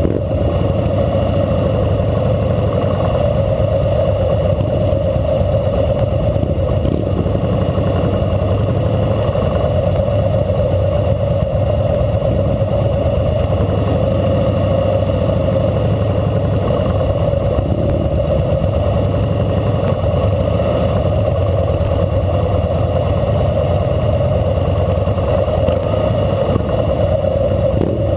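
2012 Harley-Davidson Fat Boy Lo's V-twin engine running steadily at low riding speed, with the engines of the surrounding motorcycles mixed in.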